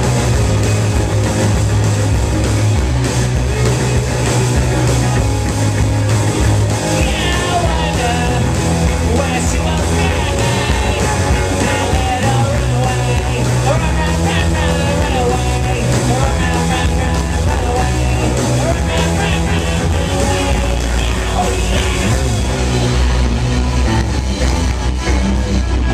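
Live punk rock band playing loud and steady: electric guitars, bass guitar and drum kit, with a wavering melodic line over the band from about a quarter of the way in.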